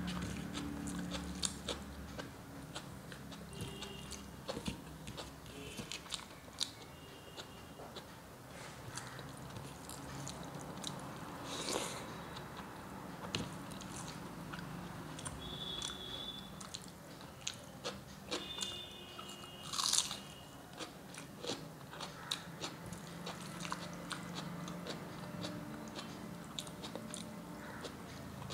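Close-miked mouth sounds of a person eating rice and curry by hand: steady chewing and lip smacking with many small clicks, and louder crunchy bites about twelve and twenty seconds in.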